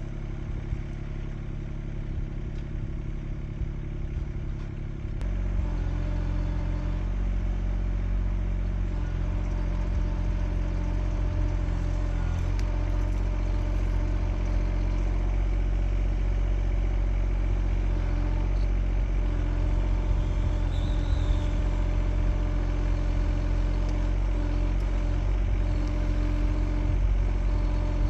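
Kymron XH20D mini-excavator engine running steadily under load. About five seconds in it steps up louder and holds there.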